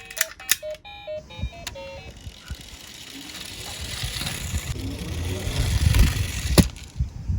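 Die-cast toy cars rolling on a plastic slope: a rattling rumble that builds over several seconds and ends in a sharp clack about six and a half seconds in. A short toy jingle of electronic beeping tones and clicks plays at the start.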